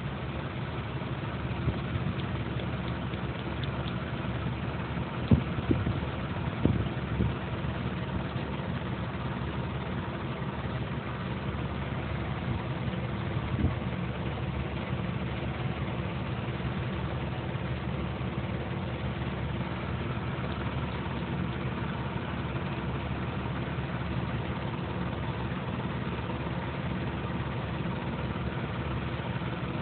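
Steady low mechanical hum, like an engine idling, with a few brief knocks about five to seven seconds in.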